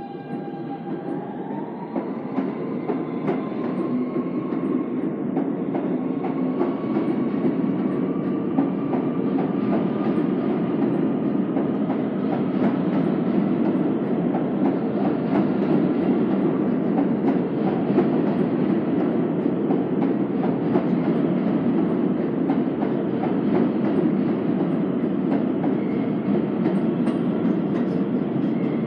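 An R160B New York City subway train (Kawasaki-built, Siemens propulsion) pulling out of an underground station and accelerating past. Its electric motor whine rises in pitch for the first ten seconds or so over a steady rumble of steel wheels on rail with frequent clicks over the rail joints. The rumble grows louder over the first few seconds as the cars speed past, then holds.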